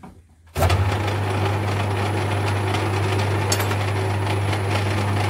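Metal lathe running, its boring bar cutting the inside of a spinning aluminium collar: a steady motor hum under a hiss of cutting noise. It starts abruptly about half a second in, after a few faint handling sounds.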